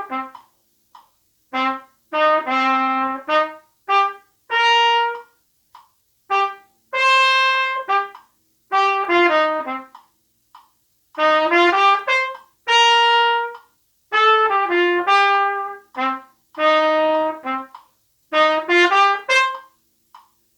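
A pTrumpet, a plastic trumpet, plays an unaccompanied swing-style jazz étude with uneven quavers, in short phrases of detached notes separated by brief rests.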